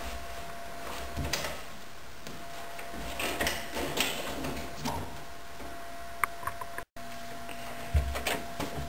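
Scattered faint knocks and shuffling of a person moving about at a door, over a steady low hum. About eight seconds in there is a thud as a door's push bar is pressed and the door swings open.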